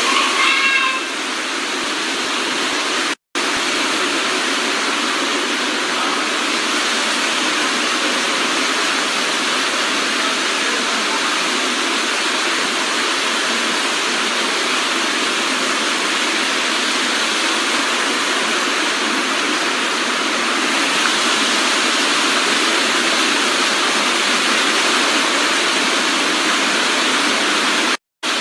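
Fast-flowing floodwater rushing in a steady, loud torrent, with two brief cuts in the sound about 3 seconds in and near the end.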